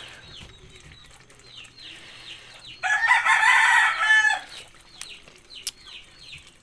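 A rooster crowing once, loud, for about a second and a half starting about three seconds in, over a background of repeated short high peeps.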